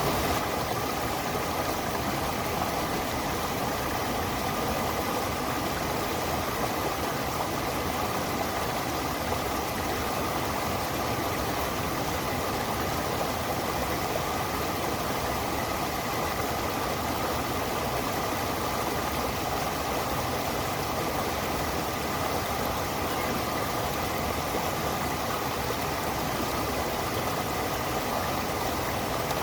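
Stream water running steadily: an even, unbroken rushing noise.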